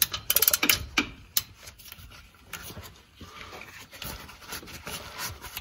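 A quick run of fine clicks, then soft, intermittent rubbing and scraping as a differential's drain-plug magnets and sediment collector are wiped and scrubbed clean by hand.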